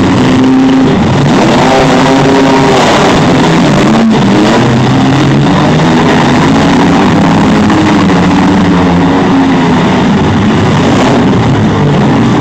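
Engines of demolition-derby minivans, trucks and SUVs running and revving, their pitch rising and falling as they accelerate across the arena, with a single sharp bang about four seconds in.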